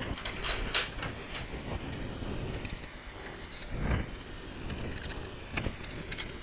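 Scattered light clicks and taps of small metal parts and fasteners being handled on an aluminium CNC router frame during assembly, with a duller knock about four seconds in.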